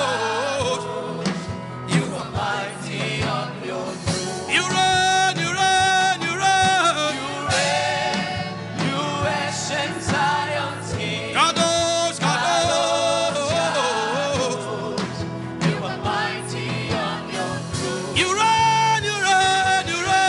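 Gospel worship song: voices singing long held notes over a steady instrumental accompaniment.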